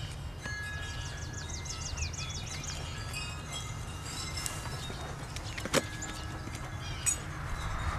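Birdsong with a quick trill of falling chirps in the first few seconds, over a steady low rumble of wind on the microphone. A single sharp click comes near six seconds in.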